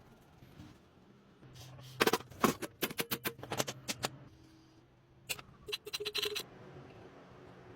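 Hand-tool work on metal parts: two quick runs of sharp clicks and taps, about two seconds in and again about five seconds in.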